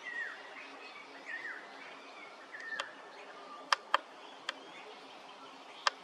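Striated pardalote calling: short notes that slide downward, about three in the first three seconds, over a steady background hiss. From about three seconds on come five sharp clicks, the loudest sounds.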